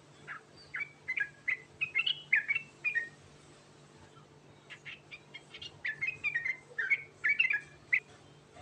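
Yellow-vented bulbul (trucukan) singing: two runs of quick chirping notes, with a pause of about a second and a half between them.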